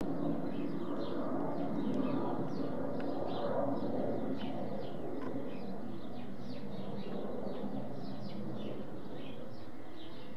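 Steady low rumble of a jet aircraft flying high overhead, with small birds chirping in short falling notes a few times a second.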